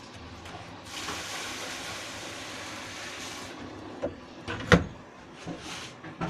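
Kitchen cooking sounds: a hiss for about two and a half seconds, then a few sharp knocks and clatters of cookware, one about halfway through the second half much louder than the rest.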